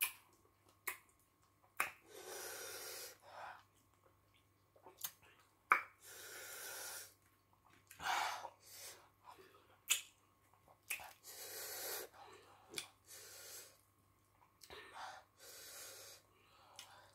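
Close-up eating sounds of fufu and fisherman soup eaten by hand: sharp wet mouth clicks and smacks between chewing, with several hissing breaths of about a second each, drawn hard through the mouth over the hot pepper soup, which she calls very hot and super spicy.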